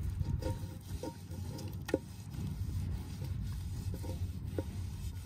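Hands smearing and patting wet mud slurry onto the sides of a cooking pot: soft squishing and scraping with a few light taps, over a steady low rumble.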